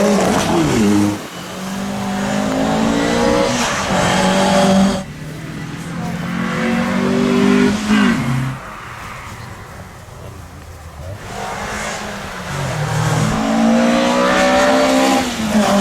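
Rally car engine revving hard under acceleration, the pitch climbing and breaking off at each gear change several times. It drops away for a few seconds past the middle, then builds again near the end.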